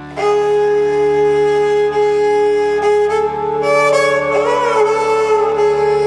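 Slow, calm background music: long held melody notes over a steady low drone. The melody moves to new notes and wavers about two thirds of the way through.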